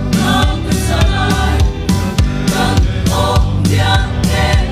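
A mixed choir of men's and women's voices singing a gospel song in parts, over an accompaniment with a strong bass and a steady beat.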